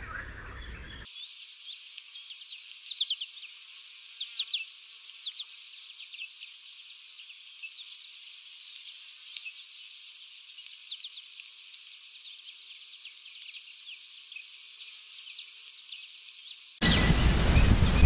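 Natural ambience of insects and small birds: a high, even pulsing chirp, about four a second, with quick falling bird chirps scattered over it. Near the end it gives way abruptly to louder wind noise on the microphone.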